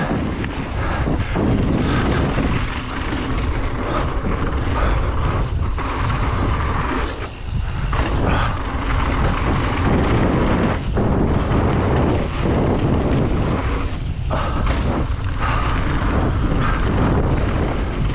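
Downhill mountain bike riding a rough, wet trail at speed: a steady rush of wind and tyre noise over wet dirt and rock, broken by frequent knocks and rattles of the bike over bumps.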